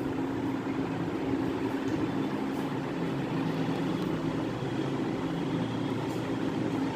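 A steady low mechanical hum holding a constant pitch, with no change in level.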